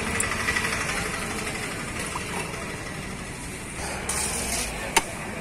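Steady background hum of road traffic, with a low rumble swelling briefly about four seconds in, and a single sharp click about five seconds in.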